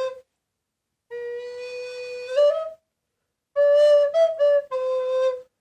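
Alto recorder playing two short phrases of held notes with pauses between them. The first is a long steady note that steps up near its end; the second runs through a few quicker notes and settles on a held note.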